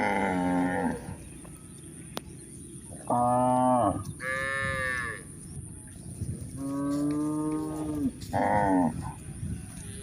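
Cattle mooing: five separate calls of varying length, one of them markedly higher-pitched than the rest.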